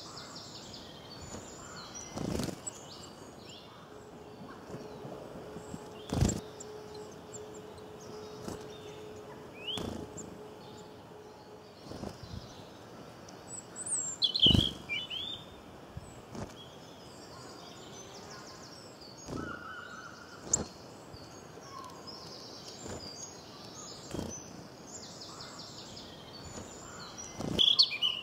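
Outdoor ambience: scattered bird chirps and calls over a steady background hiss, broken by a few sharp knocks, the loudest about halfway through and another near the end. A faint steady hum sits underneath for several seconds in the first half.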